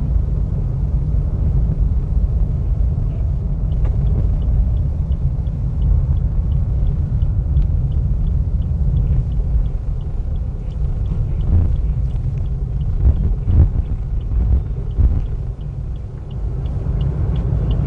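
Steady low rumble of a car's engine and tyres heard inside the moving car's cabin. From about three seconds in, the turn-signal indicator ticks evenly about twice a second, and there are a few soft knocks, from the car going over bumps, around the middle.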